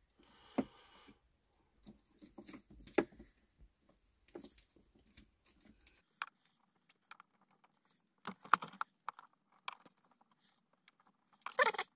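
Small clicks and rustling of hands working insulated crimp connectors and wiring, pushing the wire terminals together, in scattered handling noises with a louder cluster of clicks a little past the middle.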